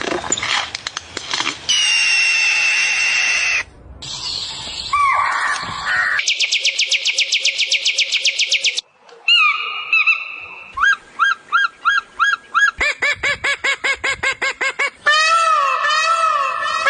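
A string of different bird calls, each a few seconds long and cut abruptly into the next: whistled notes, a rapid even trill, quick repeated chirps and, near the end, repeated arched calls.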